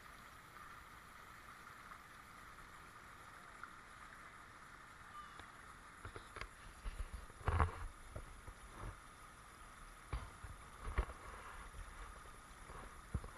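Shallow creek water running over a bedrock limestone riffle, a faint steady babble. About halfway through, a series of irregular low thumps and sloshes starts, the loudest shortly after it begins and the rest spaced out toward the end.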